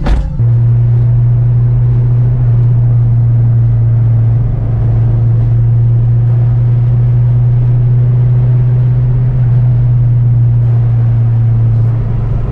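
Car engine and exhaust running at a steady cruise: a loud, even low drone that holds the same pitch throughout.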